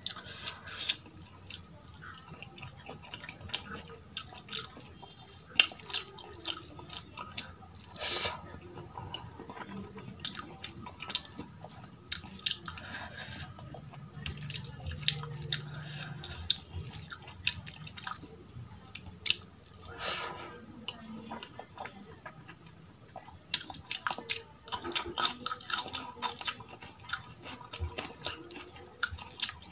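Fingers mixing rice into runny dal on a steel plate: wet squelching and many small irregular sticky clicks, close to the microphone.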